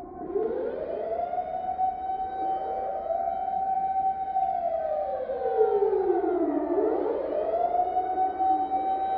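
Japanese outdoor public-warning sirens sounding a tsunami and earthquake drill alert: a wail that rises within the first second and holds at a high pitch, slides down to a low tone about six seconds in, then rises again and holds. Fainter, slightly offset copies of the wail trail behind it.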